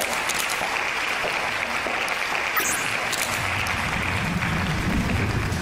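Audience applause: a steady, dense clatter of many hands clapping, with a deep low sound joining about three and a half seconds in.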